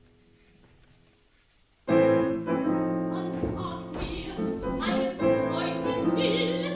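Art song for classical voice and piano: a faint held piano chord dies away, then about two seconds in the piano and a trained operatic voice come in loudly together, the voice singing with vibrato.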